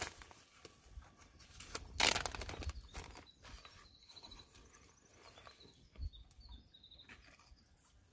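Plastic zip-top bag crinkling and rustling as it is handled and pulled open, loudest about two seconds in, with a few small clicks and a knock. Faint high bird chirps sound in the background.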